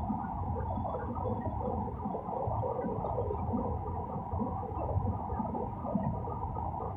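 Airliner cabin noise on approach: a steady low drone of jet engine and airflow, heard from a seat over the wing.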